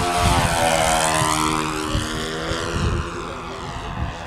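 Radio-controlled scale model of a Nakajima J1N Gekko, its twin propeller engines running at speed as it makes a low pass. The sound is loudest about a second in, drops in pitch as the model goes by, then fades as it climbs away.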